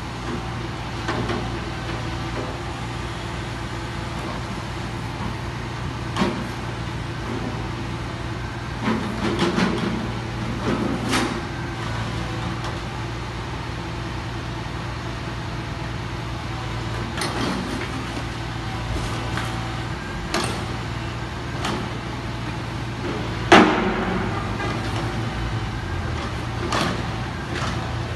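Tipper lorry's diesel engine running steadily to power its loader crane, broken by scattered clanks and knocks as the crane's clamshell grab picks up roadworks debris and loads it into the truck body. The loudest bang comes near the end.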